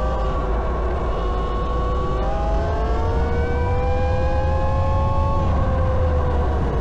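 Eride Pro SS electric dirt bike's motor whining under way. The pitch climbs steadily for about three seconds as it speeds up, then drops as it eases off, over a steady low rumble.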